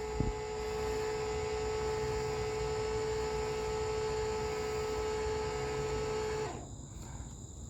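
Kohree electric tongue jack's motor running steadily with a humming whine as the jack raises, then switching off about six and a half seconds in.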